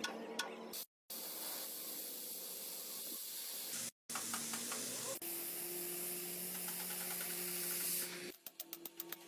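Stick-welding (SMAW) arc burning: a steady, dense frying hiss with crackle and a steady low hum beneath. It breaks off briefly twice, and near the end turns into a rapid string of crackles.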